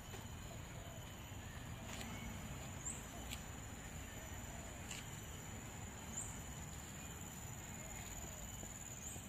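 Garden ambience: a steady high-pitched insect buzz with a short rising chirp about every three seconds, a few light clicks and a low rumble underneath.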